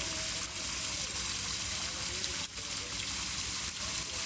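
Steady rush of water gushing from inlet pipes and splashing into a concrete fry tank.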